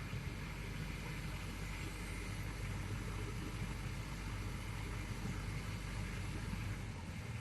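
Excavator's diesel engine running steadily, with a constant low hum.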